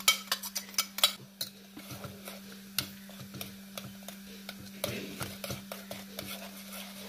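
A steel spoon clinking and scraping against a steel pot while stirring ground roasted spice powder into hot tamarind water. A quick run of clinks comes in the first two seconds, then sparser taps, over a steady low hum.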